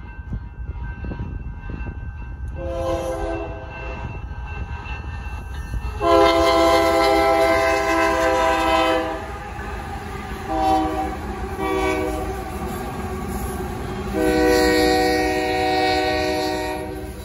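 Union Pacific GE ES44AC locomotive's multi-note air horn sounding for the grade crossing in a series of blasts, short ones mixed with two long ones, over the low rumble of the train rolling through. The crossing bells ring faintly behind it at the start.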